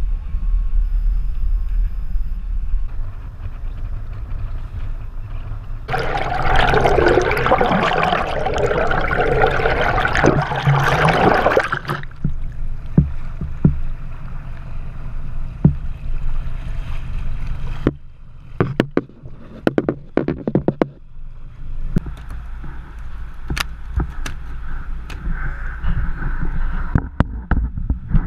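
A boat's engine running at sea, with water rushing. About six seconds in, a loud rush of splashing water lasts about six seconds. It is followed by scattered knocks and clicks.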